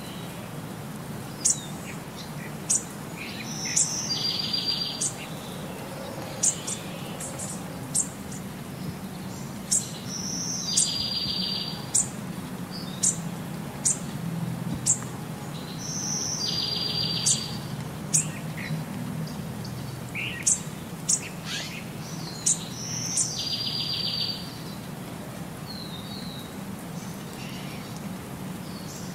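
Birds chirping, with sharp high chirps and a short buzzy trill that come back in the same order about every six seconds, like a looped nature-sound track. A low steady hum runs underneath.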